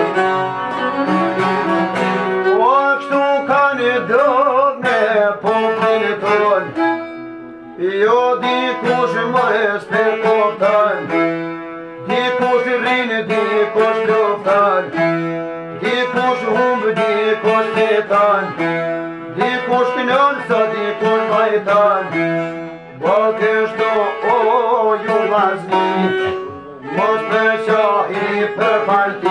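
Albanian folk music: a long-necked lute is plucked along with a violin, and a man sings in long phrases with short pauses between them.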